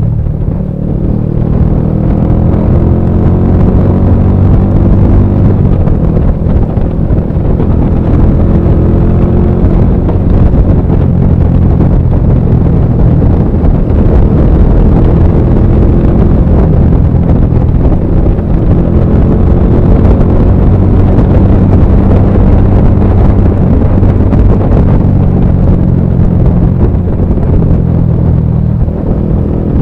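Bajaj Pulsar 220F's single-cylinder engine running through a full-system aftermarket exhaust at speed, its pitch climbing several times under acceleration. Heavy wind rumble on the action camera's built-in microphone is mixed in.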